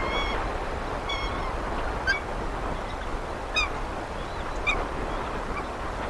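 Birds calling over a steady background hiss: two short high calls in the first second or so, then quick, sharp, chittering notes at about two, three and a half and nearly five seconds.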